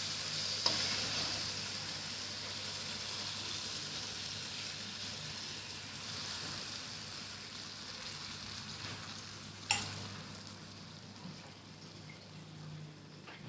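Tamarind extract sizzling in hot oil and spice powder in a kadai, the sizzle slowly dying down. A spoon clinks against the pan twice, once just after the start and louder about two-thirds through.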